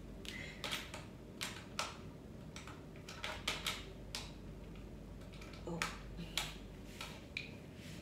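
Irregular short clicks and rustles of hair and a corded flat iron being handled close to the microphone.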